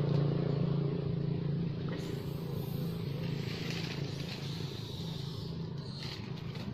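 A steady low engine hum, running evenly without revving.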